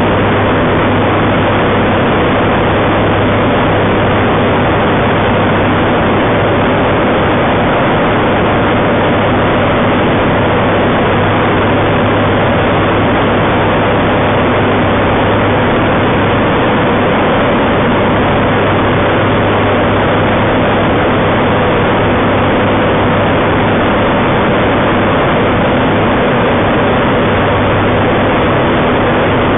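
Loud, steady drone of a homebuilt Kitfox-type light taildragger's engine and propeller in flight, heard from inside the open-framed cockpit with a constant hiss of airflow.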